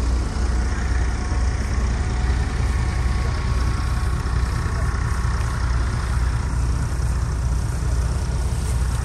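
A steady low engine rumble running without change, like a motor idling, with a faint steady whine above it.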